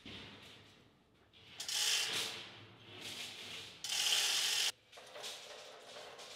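Manual chain block (chain hoist) being worked: the chain running through the block with its ratchet clicking, in several bursts of about a second each, one stopping abruptly about two-thirds through.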